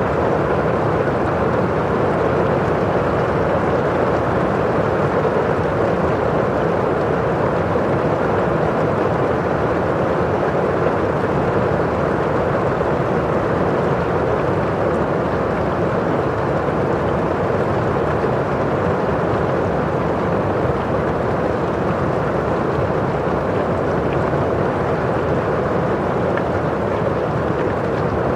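Steady rain against a window pane with rain falling outside: a dull, even rush that does not change.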